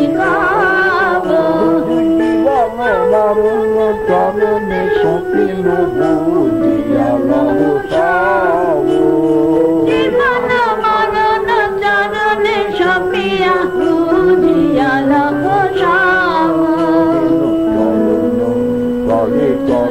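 Kirtan, devotional Hindu singing: voices carry a wavering, gliding melody over long, steady held notes.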